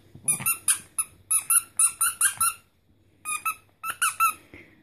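Spiky squeaky dog toy being squeezed over and over: a quick run of about ten short, high squeaks, a brief pause, then about five more.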